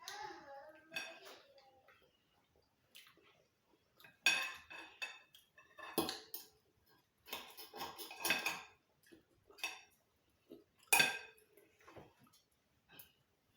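Cutlery and plates clinking and scraping during a meal: scattered sharp clinks and short clatters, the loudest about four and eleven seconds in.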